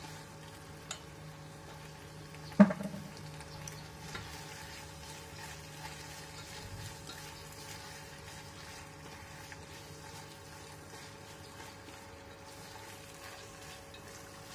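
Squid and petai sambal sizzling softly in a stainless steel saucepan as it is stirred, over a steady low hum. About two and a half seconds in, the stirring utensil knocks once sharply against the pan, with a short ring.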